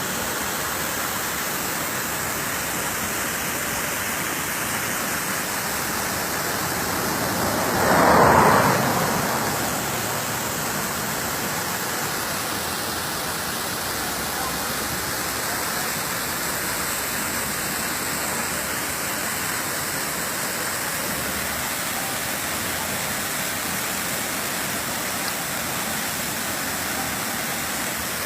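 Waterfall rushing as a steady, even roar of falling water, with one brief louder swell about eight seconds in.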